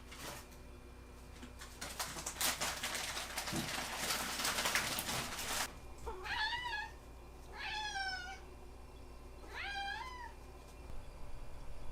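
A ragdoll cat meows three times, each call rising and then falling in pitch, after about five seconds of rustling.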